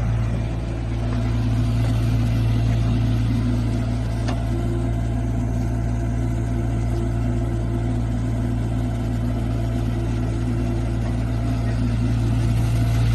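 Kubota diesel engine of an HX40 mini excavator running at a steady speed, a constant low hum that holds throughout.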